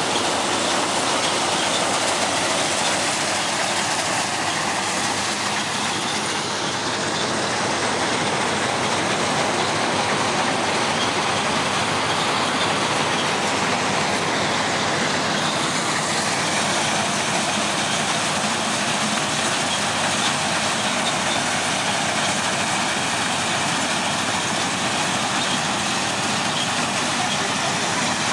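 A 4x4 NS combine harvester running steadily at close range, its engine and threshing machinery making a constant dense noise with no let-up.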